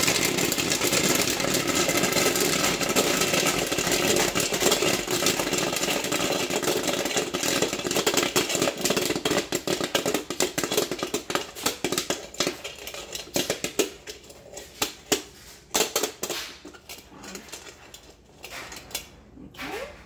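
Popcorn kernels popping rapidly inside a hand-cranked Whirley Pop stovetop popper, with the stirring crank turning. About two-thirds of the way through, the dense crackle thins to scattered single pops, which means the batch is nearly done.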